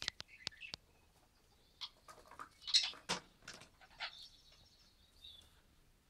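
Budgerigar chirping in short, bright calls, loudest about three seconds in, with a few sharp clicks in the first second.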